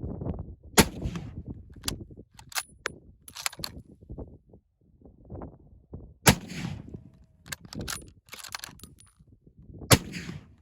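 Wind buffeting a phone microphone, with three sharp bangs, each ringing briefly: about a second in, past halfway and near the end. Smaller clicks and knocks fall in between.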